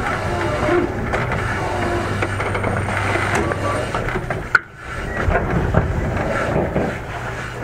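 Running noise inside a JR East 205-series 3100-subseries electric train's motor car, with MT61 DC traction motors: steady wheel-on-rail rumble and a low hum. A sharp click comes about four and a half seconds in, followed by a brief drop in level.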